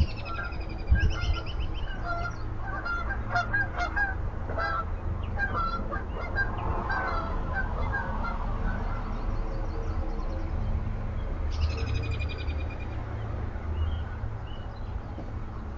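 Birds calling: a run of short, repeated calls through the first half, and a buzzy rapid trill twice, at the start and again about twelve seconds in, over a steady low rumble.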